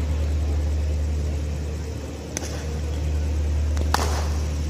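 Cricket bat striking a ball with a sharp crack near the end, after a lighter click about a second and a half earlier, over a steady low rumble.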